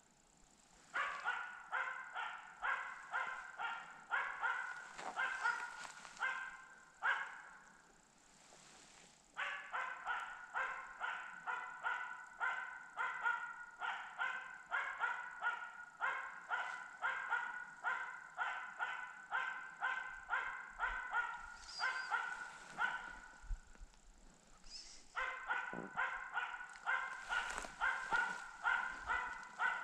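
Tree-barking hunting dog bay-barking at a treed capercaillie hen: rapid barks, about three a second, in long runs that pause briefly about eight seconds in and again near twenty-five seconds.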